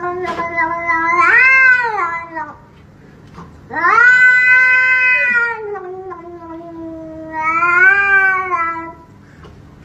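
A cat yowling in long, drawn-out meows: one call at the start, then a second that lasts about five seconds, each swelling up in pitch and sinking again.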